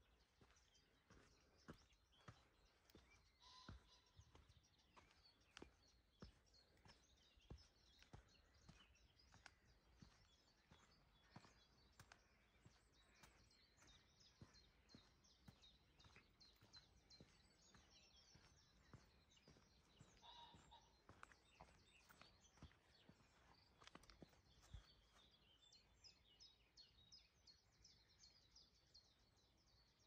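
Faint birdsong, short chirps, with the walker's footsteps ticking along at walking pace.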